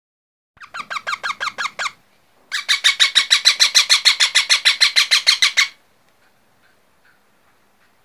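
Parakeet chick calling in two rapid runs of short squeaky notes, about eight a second, each note dipping in pitch: a softer run of about a second, then a louder one of about three seconds. These are food-begging calls while it is being hand-fed.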